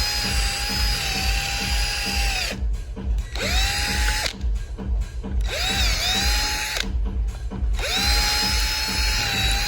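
Handheld electric drill boring a bolt hole out larger: the motor whine starts and stops four times, rising quickly in pitch at each start, with a short dip under load about six seconds in.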